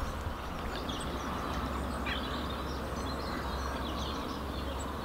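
Outdoor lakeside ambience: a steady low rumble, with small birds chirping on and off.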